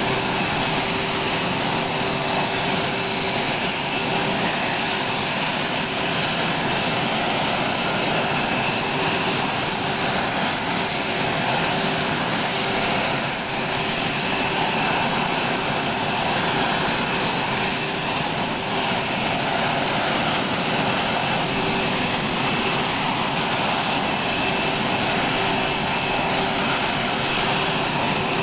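Jet aircraft running on the ground, a steady whine of several high tones over an even rushing noise that holds constant throughout.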